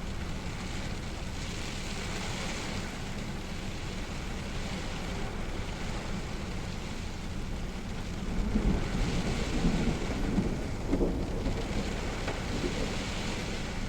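Steady rainfall, with a low rumble of thunder that swells a little past halfway and then dies down.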